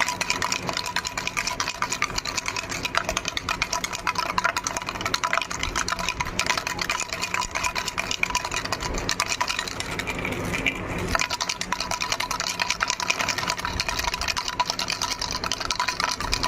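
A baby rattle shaken without a break, its loose pieces clattering in a fast, dense rattle. It goes briefly softer and duller about ten seconds in.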